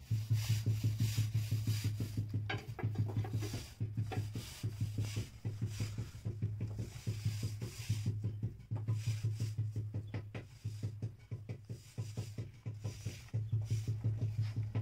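Potter's wheel spinning with a low hum that pulses several times a second and breaks off briefly now and then, as hands rub and shape wet clay on it.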